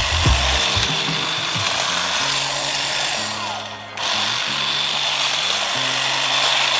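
Ryobi 18V ONE+ cordless pole hedge trimmer running, its electric motor and reciprocating blades making a steady high whine. The motor cuts out briefly a little past halfway and starts again. Background music plays underneath.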